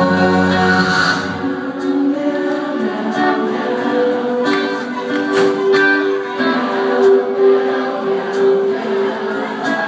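Live rock band playing, electric guitars and drums with sharp cymbal and snare hits, loud through a theater PA. The deepest bass drops out about a second in.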